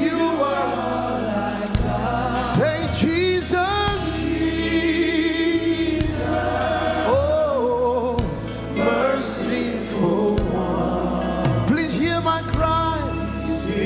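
Live gospel worship song: a choir and lead voices singing with vibrato over instrumental backing with long held bass notes.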